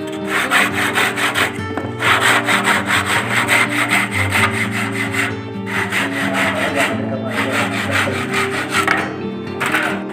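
A hand saw cutting through a wooden trim board with quick back-and-forth strokes, in several runs with short pauses between them.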